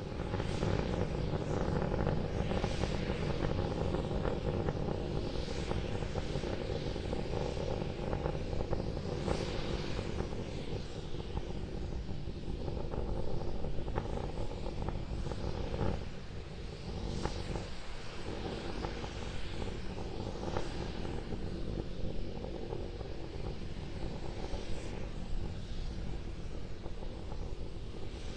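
Starship SN10's Raptor rocket engines firing in powered ascent, heard from the ground as a steady low rumble with scattered crackle. It weakens briefly a little past the middle.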